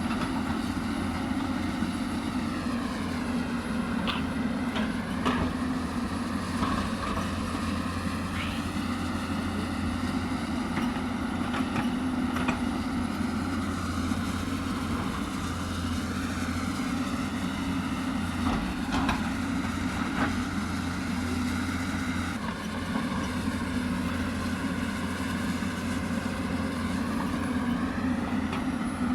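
Hyundai 220 excavator's diesel engine running under load, with a whine that rises and falls as the hydraulics work, and occasional short knocks from the digging.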